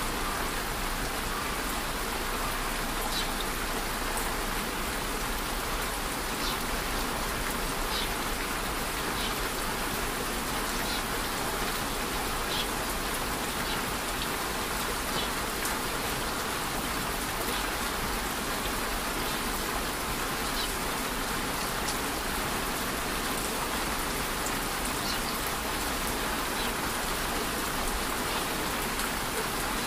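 Steady rain falling, an even hiss with occasional single drops ticking out above it.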